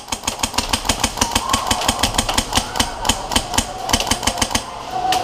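Airsoft rifle firing on full auto: a long rapid stream of sharp shots at about ten a second, a brief stop near the end, then firing again.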